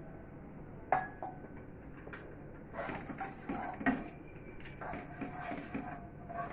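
A plastic spatula stirring and scraping granulated sugar and water in a nonstick pan, dissolving the sugar for syrup. A sharp knock comes about a second in, and a run of uneven scrapes and clatters follows from about three seconds in.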